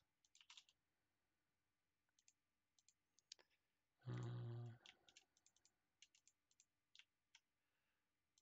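Faint, scattered computer mouse clicks and a few key presses while a 3D animation program is being operated. About four seconds in there is a short, low hummed vocal sound lasting about a second.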